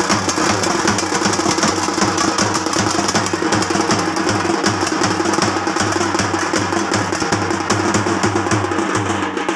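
Fast, steady drumming: dense, rapid drum strokes over a repeating low beat, loud and continuous.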